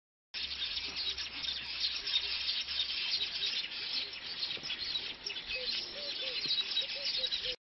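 A colony of weaver birds chattering, a dense unbroken mix of many fast high-pitched calls. It starts suddenly just after the beginning and cuts off abruptly near the end.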